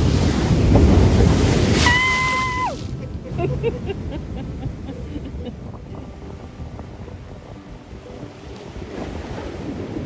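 Ocean wave breaking over rocks right at the microphone: a loud rush of surf for about three seconds, then the softer wash of foam draining back, with wind buffeting the mic. The surf swells again near the end as the next wave hits.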